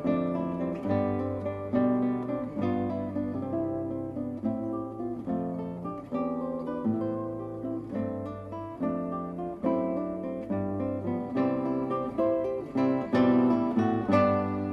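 Background music played on acoustic guitar: plucked notes and chords, each struck sharply and left to ring out.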